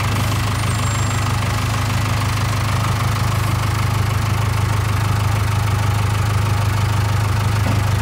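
Case 580K backhoe loader's diesel engine idling steadily, a low even hum heard close to the machine.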